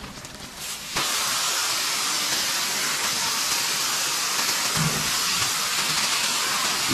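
Water hose spraying in a milking shed: a steady hiss that starts suddenly about a second in and holds at an even level.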